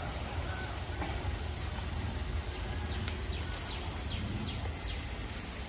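Steady high-pitched drone of insects, with a short run of faint, quick falling chirps in the middle of it.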